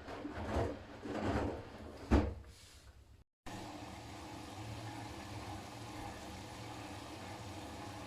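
Siemens iQ500 front-loading washing machine tumbling laundry through water in its delicates wash: sloshing thumps that fade as the drum slows to a stop. After a sudden break about three seconds in comes a steady low hum and hiss.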